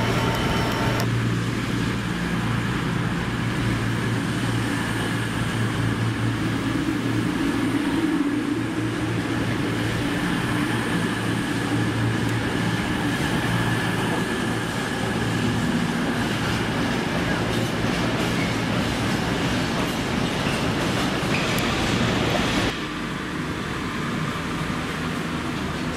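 A train running at a station platform: a steady low drone with a rushing noise over it, which drops away abruptly a few seconds before the end.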